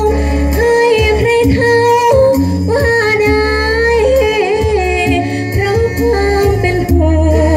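A woman singing a Thai luk thung song into a microphone over backing music with a steady bass; her voice slides and bends between held notes.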